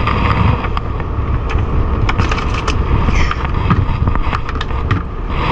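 A small fishing boat's engine running steadily under way, with rumbling wind and water noise over the microphone and a few light knocks from the deck.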